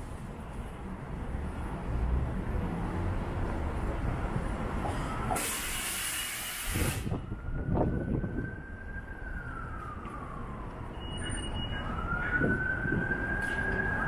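City street traffic with a high whine that rises, holds and falls, then rises again near the end. A loud hiss cuts in briefly about five and a half seconds in.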